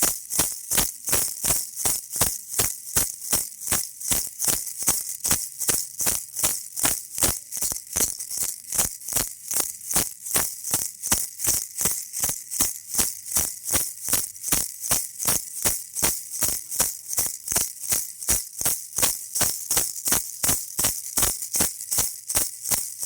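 Baby rattle shaken in a steady, even rhythm, about three shakes a second, each a crisp, high-pitched rattle.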